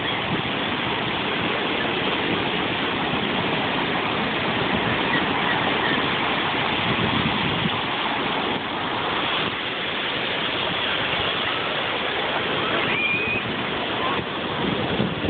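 Ocean surf washing up the sand, a steady rushing wash without a break, with a short high-pitched cry near the end.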